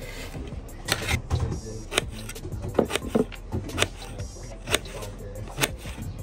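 Knife chopping cucumber on a cutting board: sharp taps of the blade through the cucumber onto the board, roughly one a second, some in quick pairs.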